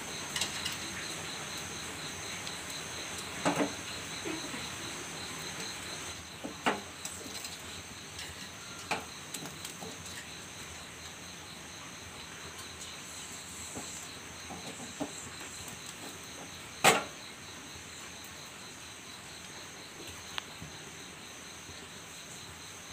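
Insects chirping in a steady, evenly pulsing high trill over a low hiss, with a few light knocks and taps, the loudest about 17 seconds in.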